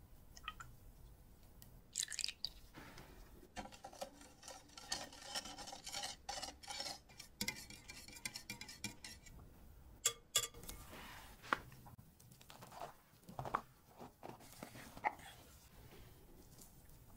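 Wire whisk beating a runny egg, milk and oil batter in a glass bowl: a quick run of wet clicks and sloshing lasting several seconds. About ten seconds in come two sharp clinks of metal on glass, then a few scattered soft knocks.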